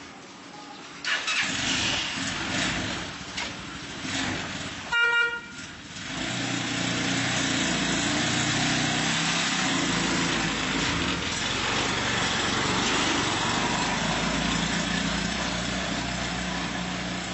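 Motorized cargo tricycle's engine starting about a second in and running unevenly, a horn tooting briefly twice near five seconds in, then the engine running steadily as the tricycle pulls away and drives off.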